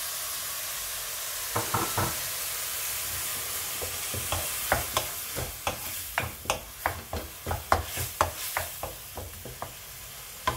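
Onions frying in oil in a pan with a steady sizzle, and a run of quick, sharp clicks and knocks from about a second and a half in until near the end, the whole growing quieter toward the end.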